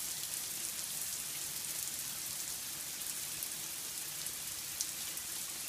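Steady rain falling, with water running off a roof onto plants: an even hiss with scattered sharper drips, one louder about five seconds in.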